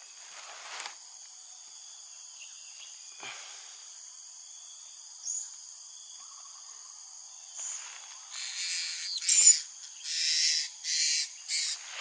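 Insects shrilling steadily with several high, even tones; in the last four seconds a run of loud, harsh screeches from a blue-crowned hanging parrot.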